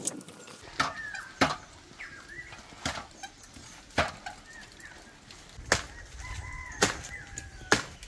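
Sharp chopping knocks, about seven at uneven intervals, as green coconuts are cut from the crown of a coconut palm. Thin bird calls sound between the strikes.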